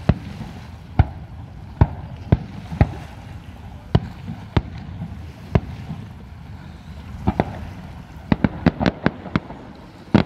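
Aerial fireworks shells bursting with sharp bangs, about one a second at first, then a quick run of bangs close together near the end.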